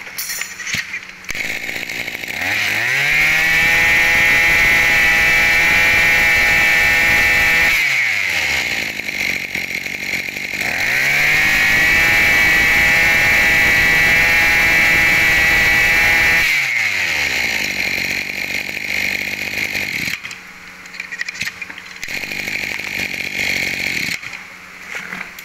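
Maruyama MBS2630T brush cutter's small 26 cc two-stroke engine idling, then revved up twice to high speed and held for about five seconds each time, dropping back to idle after each rev.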